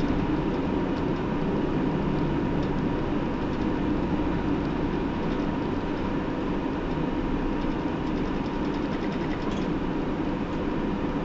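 Hino city bus's diesel engine running steadily, heard from inside the passenger cabin, with a thin steady whine above the engine hum.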